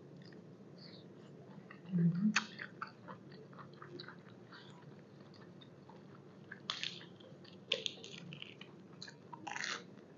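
Close-miked chewing and biting of a tripe salad with raw vegetables: wet mouth clicks and crisp crunches, with louder bursts about two seconds in and again from about seven to ten seconds in.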